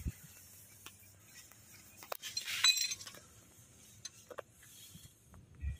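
Metal climbing hardware on the rope, a rappel descender and carabiners, clinking as it is handled, with scattered light knocks. The loudest part is a short ringing metallic jingle about two and a half seconds in, and a dull bump comes near the end.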